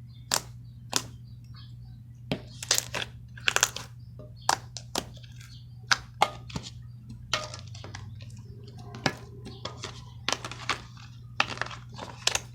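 Slime being handled, giving sharp irregular clicks and pops, about one or two a second, over a steady low hum.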